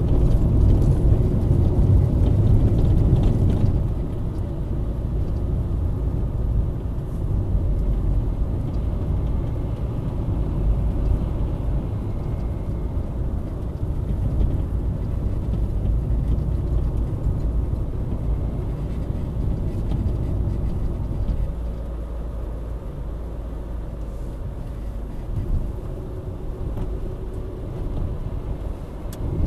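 Car driving, heard from inside the cabin through a windscreen-mounted dash cam: a steady low rumble of engine and tyre noise. It eases about four seconds in and drops lower for a few seconds past the middle.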